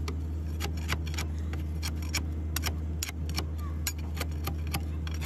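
Sharp metallic clicks, several a second at uneven spacing, as a ribbed steel rod is worked back and forth against the steel of an excavator bucket linkage, over a steady low machine hum.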